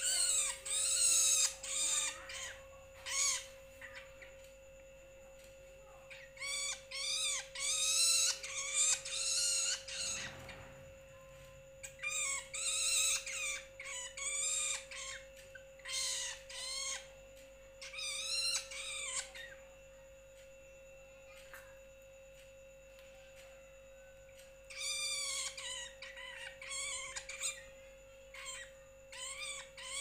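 A juvenile long-tailed shrike (Lanius schach) calling over and over, in bouts of several seconds separated by pauses of a few seconds.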